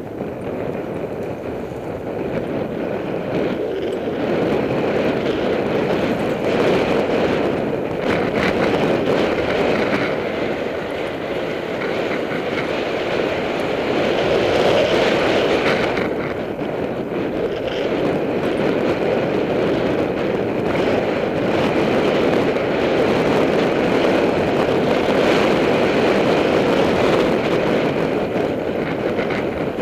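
Mountain bike running fast downhill over a rough dirt track, recorded from a camera on the bike or rider: steady tyre noise on loose dirt with constant rattling and clattering of the bike.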